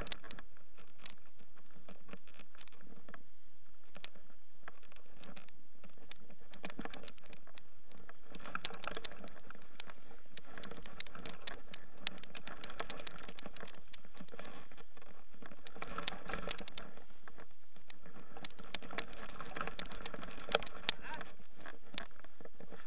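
Snowboard sliding through snow: a steady rough hiss with many sharp crackles and clicks, getting busier about eight seconds in.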